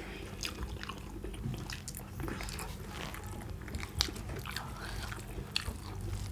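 People biting and chewing chicken leg curry with rice, with soft mouth smacks and small clicks scattered throughout; one sharper click about four seconds in.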